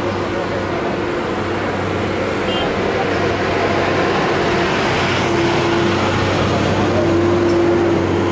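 Steady drone of motor traffic, with a constant low hum and a mid-pitched tone that swells around five seconds in and again near the end, and people talking in the background.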